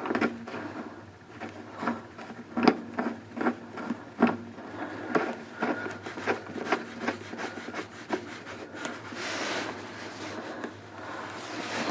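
Hand tools and metal fittings being handled: irregular clicks, knocks and scraping.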